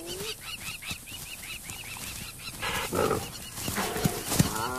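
Cheetahs and spotted hyenas calling in a standoff over a kill: a string of short high chirps, a rough snarl about two and a half seconds in, a sharp knock just before the end, then a wavering call.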